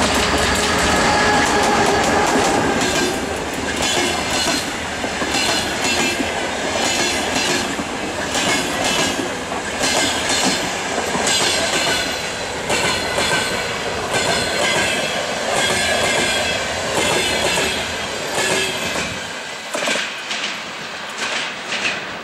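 An EP20 electric locomotive passes at speed, followed by a long train of passenger coaches rolling by with wheels clicking over the rail joints. The sound fades near the end as the train draws away.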